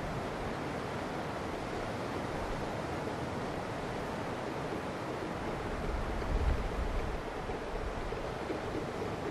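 Ocean surf: a steady rushing wash of breaking waves, with a louder low rumble about six seconds in.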